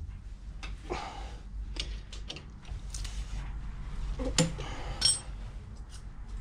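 Scattered metallic clinks and knocks of tools and brake parts being handled during brake work, with one ringing metal clink about five seconds in.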